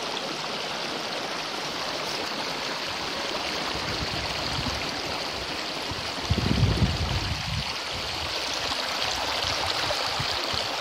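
Mountain stream running over rocks, a steady rush of water, with a brief low rumble about six seconds in.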